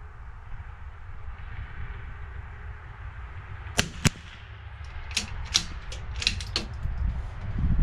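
Gunshots on a rifle range: two sharp cracks about a third of a second apart, then a quicker run of five or six lighter cracks over the next second and a half.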